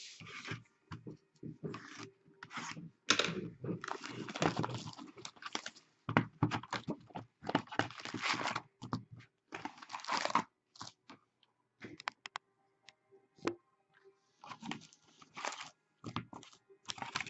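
The wrapping on a sealed box of hockey trading cards being torn and crinkled open: irregular bursts of tearing and rustling with small clicks in between.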